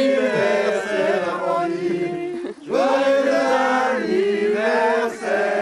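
A group of people singing a birthday song together in long held notes, with a short break between phrases about two and a half seconds in.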